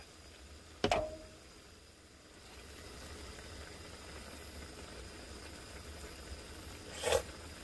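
A portable gas stove burns steadily under a skillet of simmering broth, and the hiss grows a little louder after a couple of seconds. About a second in, a metal beer can is set down on the table with a short clink that rings briefly. Just after seven seconds there is a quick slurp as a spoonful of the broth is tasted.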